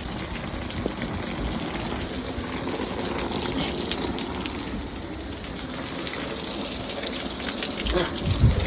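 Heavy rain and wind in a severe thunderstorm: a steady, loud rushing noise, with a couple of deep thumps near the end.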